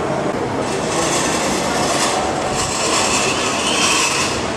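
Street noise from a protest crowd: a steady, loud rush of crowd and street sound that swells about half a second in and eases near the end.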